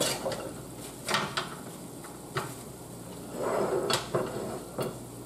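Kitchen handling sounds: a handful of short knocks and clinks of cookware or utensils, with a brief rustle or scrape about three and a half seconds in.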